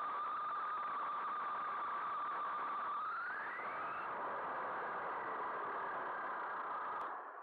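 Maverick Strada RC car's motor and drivetrain whine picked up by an onboard camera, with tyre and wind noise. The whine holds steady, rises in pitch about three seconds in, then settles, and it cuts off with a click near the end.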